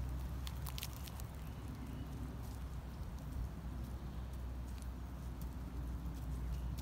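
Steady low outdoor rumble, with a few faint crackling steps on dry leaves and grass in the first second.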